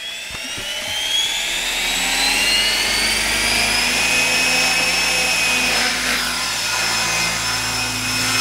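600-size radio-controlled helicopter spooling up and lifting off. Its high motor and rotor whine rises in pitch over the first few seconds, then holds steady as it hovers.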